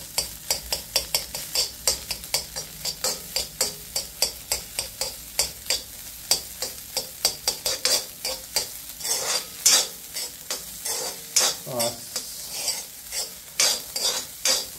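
A metal spoon scraping and stirring fried rice against a black iron karahi in a quick run of strokes, about three or four a second, over the light sizzle of rice frying in oil. The cooked omelette is being broken up and mixed through the rice.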